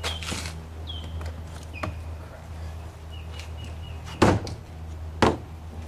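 A few short, sharp knocks, the loudest about four seconds in, over a steady low hum, with short high chirps between them.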